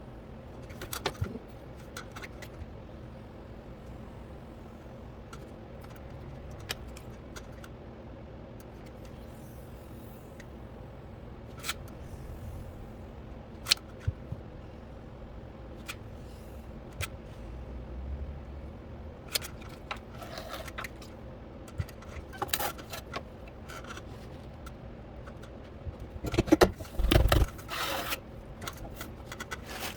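Electric potter's wheel running with a steady hum, with scattered clicks and short scrapes of tools and hands working clay, and a louder cluster of scraping and knocks near the end.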